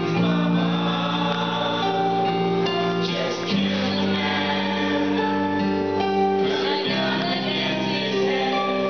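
Karaoke: a group of young people singing together into microphones over a backing track. The chords change about every three and a half seconds.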